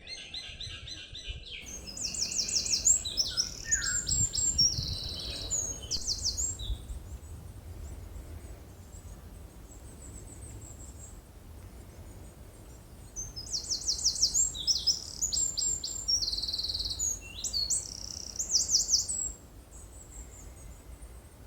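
Songbirds singing: two spells of rapid high chirps and trills, each lasting several seconds, with a low steady rumble underneath.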